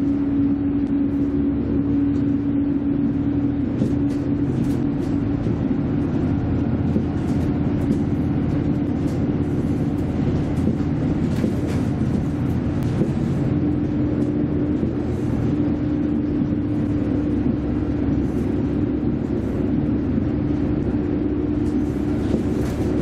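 Cabin noise of a V/Line Vlocity diesel railcar running at speed: a steady low rumble of engine and wheels on rail, with a droning tone that fades for several seconds in the middle and then returns. Faint clicks and rattles come through now and then.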